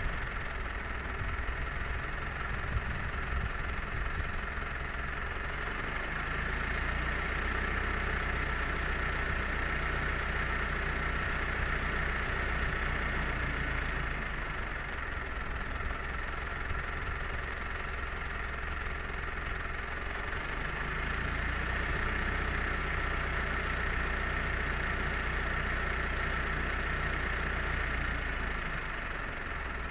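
An engine running steadily, its low hum swelling and easing twice, over a constant hiss.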